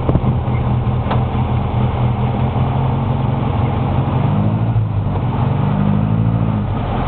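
Engine of an old vehicle running at low speed, a steady low note that rises and falls in pitch about two-thirds of the way through as the engine speed changes.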